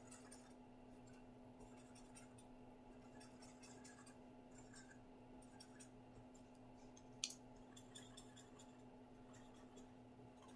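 Faint scratching of a felt-tip marker drawing short strokes on paper, over a steady low room hum; one sharp click about seven seconds in.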